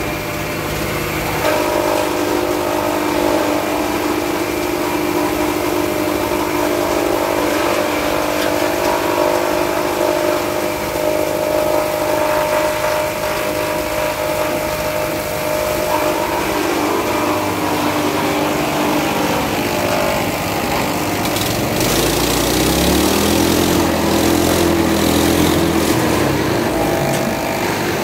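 Motor-driven silage machinery running with a steady hum. About 22 seconds in, a second deeper motor starts and winds up to speed, then runs on with the first.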